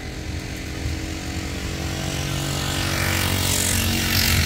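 A motor vehicle's engine running at a steady pitch and growing louder as it approaches, with a rush of passing noise peaking near the end as it goes by close.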